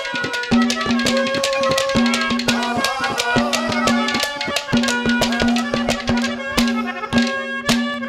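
Live Haryanvi ragni folk accompaniment with no singing: quick, steady hand-drum strokes under a wavering melody line and a repeated low note.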